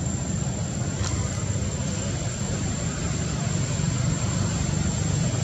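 Steady deep rumble with an even hiss over it, and a faint click about a second in.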